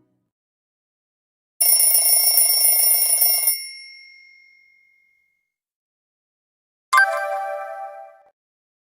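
Two Nokia C5 alert tones played one after another. The first is a dense, high tone lasting about two seconds that fades out. The second, a few seconds later, is a shorter chime that starts sharply and fades within about a second.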